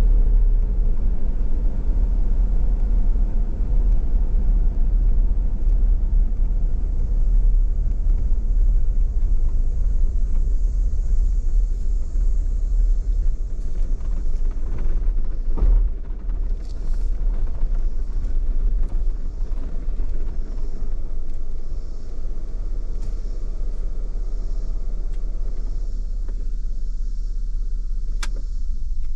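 Car driving: a steady low rumble of road and engine, with a single thump about sixteen seconds in and a short click near the end.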